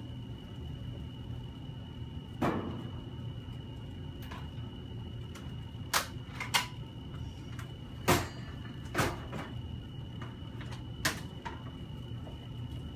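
Handling noise: a handful of scattered knocks and clicks, about six over the stretch, over a steady low hum and a faint steady high whine.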